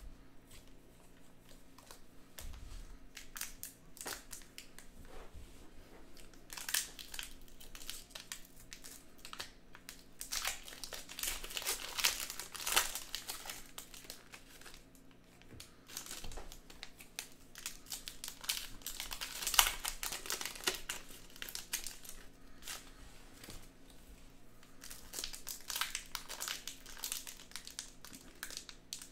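Trading-card pack wrappers crinkling and tearing as packs are opened, in several bursts of a few seconds each.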